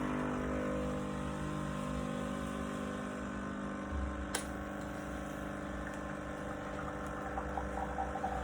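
Nescafé Dolce Gusto Genio S Plus capsule coffee machine brewing: its high-pressure pump runs with a steady hum while liquid is forced through the capsule into the cup. There is a single sharp click about four seconds in.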